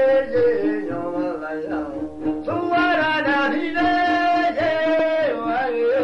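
Background music: a melody of long, held notes that slide up and down between pitches, sung over a steady drone.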